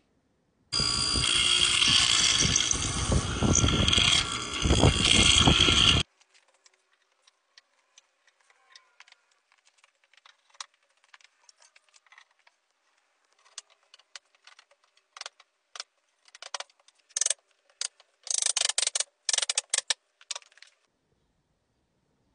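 A woodworking power tool running loudly for about five seconds, starting and stopping abruptly. Then scattered light clicks and knocks, with a cluster of short noisy bursts near the end.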